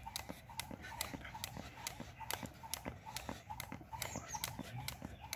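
Jump rope skipping on asphalt: the rope slaps the road and sneakers land in a steady rhythm of sharp taps, about three a second.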